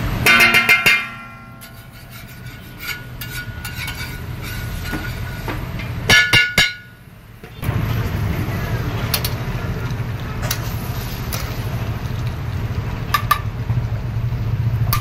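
Two short bursts of metal clinking and ringing, about a second in and again about six seconds in, from a steel spatula knocking against steel cooking pans, over a steady low rumble.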